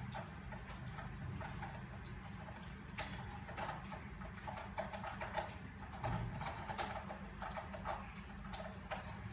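Irregular small clicks and ticks of a crochet hook working through yarn stitches, more frequent from about three seconds in, over a steady low hum.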